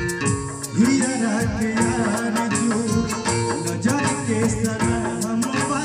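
Live Bhojpuri stage song: a man singing into a microphone over amplified backing music with a steady beat.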